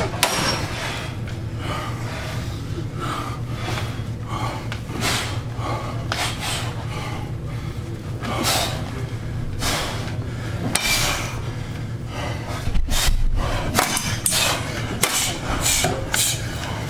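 Machetes striking round shields, one of them a shiny metal shield, in sharp clanks and whacks at irregular intervals, more than a dozen blows in all, coming faster in the last few seconds.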